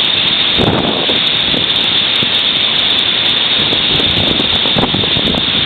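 Storm wind blowing at near-hurricane strength, a loud steady rush that surges in gusts, with the wind buffeting the microphone.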